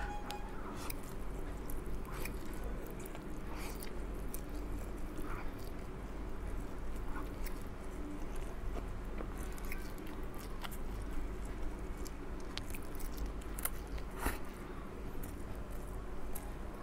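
Close-up eating of instant fried noodles with a fork: chewing and mouth noises with small scattered clicks, over a faint steady low hum.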